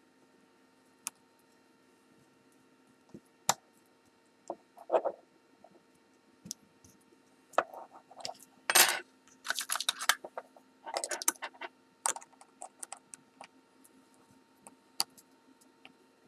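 Small metal tool clicking, clinking and scraping against a lock cylinder's C-clip as it is pried at. The clicks come scattered, with the loudest clatter about nine seconds in and short runs of scraping after it.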